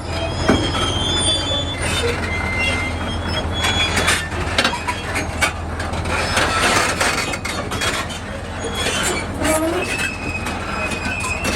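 Steel crawler tracks of a large bulldozer clanking and squealing as it moves, with irregular metal knocks and short high squeals over the steady low hum of its diesel engine.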